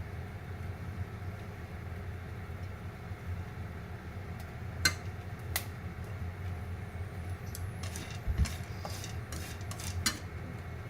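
Popcorn kernels popping over a steady low hum: a couple of single pops about five seconds in, then a quicker run of pops near the end.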